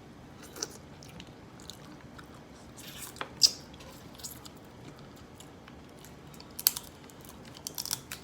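Close-up eating sounds: someone chewing and smacking on lobster, with scattered short wet clicks and crackles, the loudest about three and a half seconds in.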